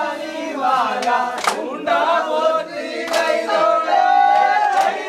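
A crowd of men singing together in chorus, with a sharp beat about every second and a half, three times.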